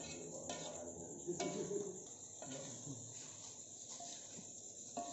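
A metal spatula stirring in a wok, with a few light taps and scrapes, under faint background voices.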